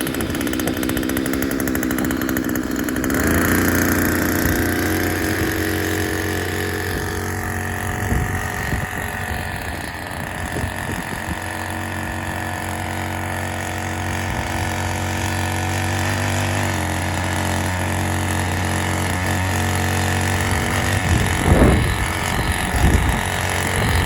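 Small engine of an engine-converted chain-pot seedling transplanter running steadily, with a steady high whine above its note. The note shifts about three seconds in, and a few knocks come near the end.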